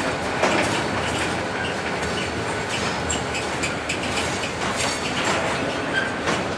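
Freight train of steel gondola cars rolling past, a steady rumble and rattle with the wheels clacking irregularly over the rails.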